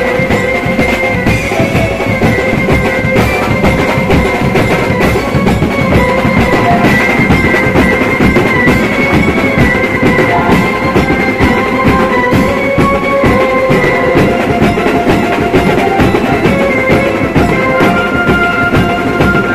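Loud band music: a dense, driving drum beat under a held melody line that steps up and down in pitch, continuous throughout.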